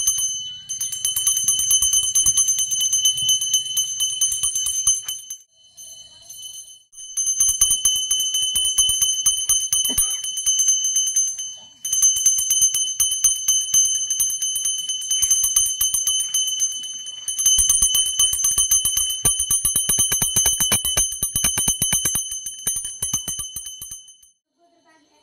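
A small puja hand bell rung rapidly and continuously during the worship rite. It breaks off briefly about five seconds in and again around twelve seconds, and stops just before the end.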